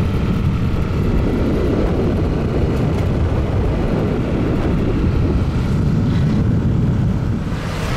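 Wind buffeting the microphone of a camera held out on a moving motorbike: a loud, steady low rumble with the motorbike's running noise underneath, easing slightly near the end.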